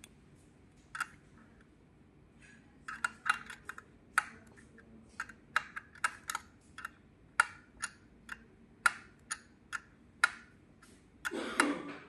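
Sharp, irregular clicks and taps of small hard parts being handled as air tubes and fittings are connected to a leak tester's test fixture. A few start about a second in, then come every half second or so, with a longer rattling clatter near the end.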